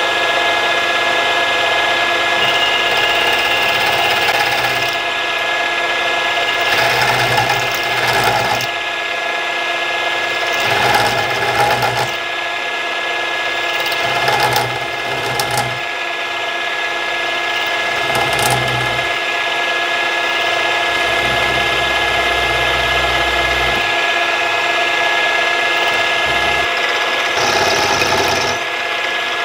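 Milling machine running with a small end mill plunging into a lathe top slide's V-groove, cutting a flat bottom ready for drilling: a steady motor and spindle whine, with the cutting noise swelling and easing every few seconds as the cutter is fed in.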